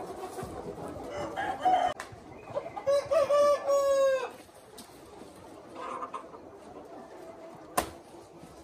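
Flock of young Minh Du chickens clucking, with a young cockerel crowing once about two and a half seconds in, a long call of nearly two seconds. A single sharp knock near the end.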